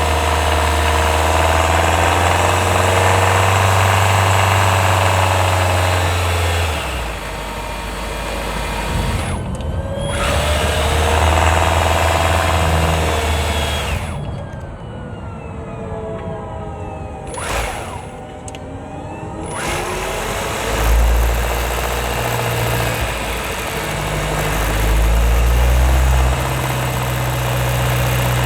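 Hyundai Tucson NX4 Hybrid's petrol engine running while driving, picked up close from on top of the engine, its note rising and falling with engine speed and dropping away for a few seconds about halfway through. The recording is made to catch a rattle that the owner hears when the engine works under load uphill.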